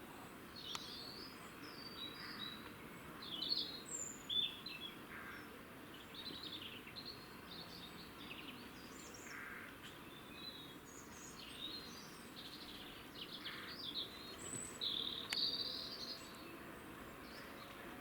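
Eurasian jays giving a run of short, varied squeaky calls and chirps, some in quick clusters, over steady background hiss.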